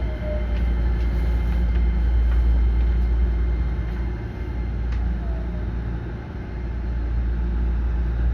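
Running noise of a Hankyu 9300 series electric train heard from inside the car: a steady low rumble of the wheels on the rails with a few faint clicks, and a motor whine that falls in pitch as the train brakes for a station stop.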